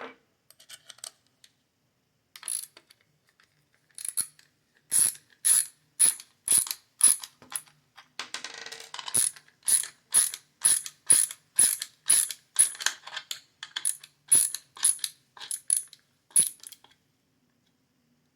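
Ratchet mechanism of a Klein stubby ratcheting nut driver clicking as it is worked in reverse to back a bolt out, a sharp click about twice a second on each return stroke. A short scraping sound comes partway through, and the clicking stops about a second and a half before the end.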